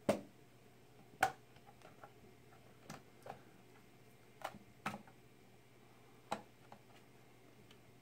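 Sharp plastic clicks at irregular intervals as the TiVo Bolt's white plastic top cover is pried at and its snap clips pop loose, the loudest near the start and about a second in.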